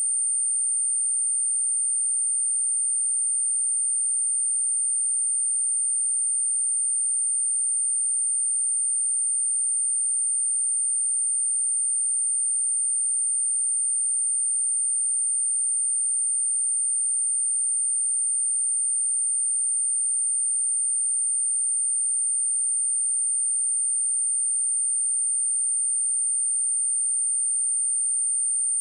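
A pure 8938 Hz sine-wave test tone: one steady, high-pitched whistle held at an unchanging level, used to test speakers and to shake water and dust out of them.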